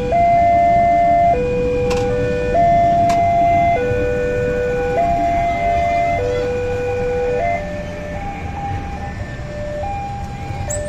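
Railway level-crossing warning alarm sounding a steady two-tone signal, alternating between a higher and a lower tone each held about a second and a quarter. Under it is the low rumble of a passing train, and the alarm grows fainter about seven and a half seconds in.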